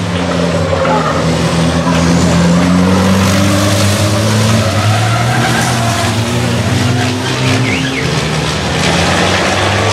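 Several racing trucks' big diesel engines running hard as the trucks pass close by in a pack through a corner, their engine notes overlapping and shifting slowly in pitch.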